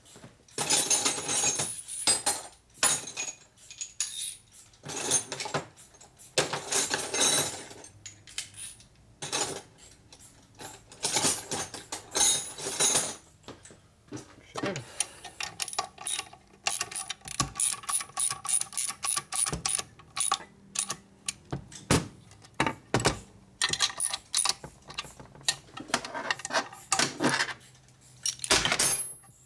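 Steel hand wrenches clinking and a ratchet clicking in quick, even runs as the nuts on the crankcase bolts of a Harley-Davidson 45 flathead engine are run down and tightened.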